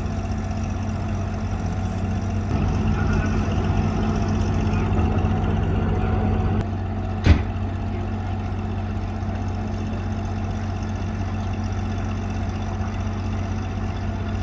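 Vehicle engine idling with a steady hum that rises a little for a few seconds, and one sharp knock about halfway through.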